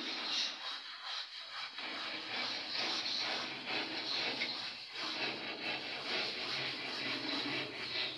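Continuous rough rubbing, scraping noise.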